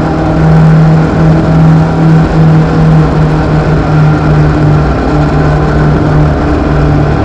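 Legends race car's four-cylinder Yamaha motorcycle engine, heard from inside the cockpit, running at steady racing revs on track, with a few brief dips in its note.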